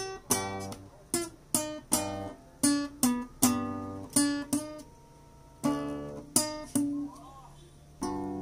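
Nylon-string classical acoustic guitar played in single notes and chords struck one at a time, about a dozen in all at an uneven pace, each ringing out and fading before the next.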